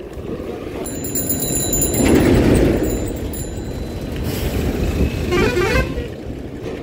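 Highway traffic passing close by: a heavy vehicle goes past, loudest about two seconds in, and a horn sounds briefly a little past five seconds.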